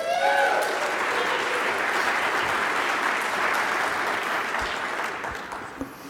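Conference audience applauding, with a voice calling out at the start; the clapping fades out near the end.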